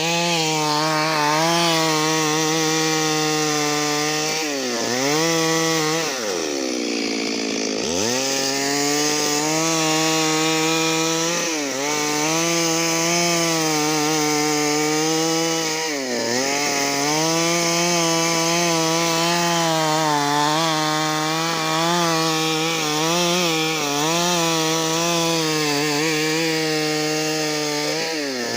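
Stihl MS 382 two-stroke chainsaw running at high revs, cutting wood into planks. Its note holds steady, but it sags briefly several times and drops right down and climbs back once about six to eight seconds in.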